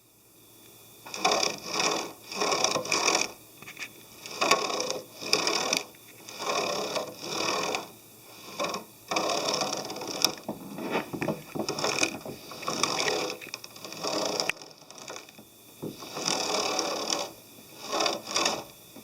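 Renault Koleos tailgate gas-strut dampers creaking as the tailgate moves, in about twenty short grating bursts in uneven clusters. This is abnormal damper noise from struts that have grown bad again about four years after a free replacement.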